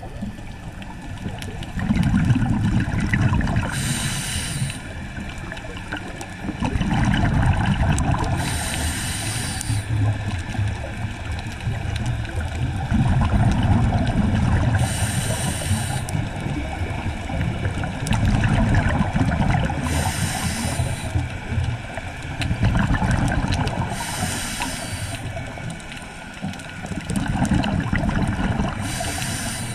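Scuba diver breathing through a regulator underwater. A short hiss on each inhale comes about every five seconds, six times, and each is followed by a few seconds of low bubbling as the exhaled air vents.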